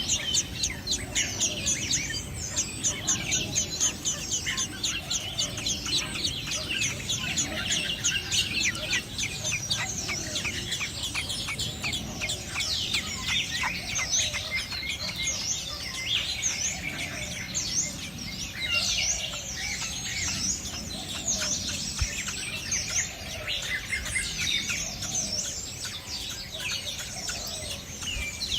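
Baby birds' high begging chirps, rapid and unbroken, while a parent feeds them. A lower call repeats every second or two underneath.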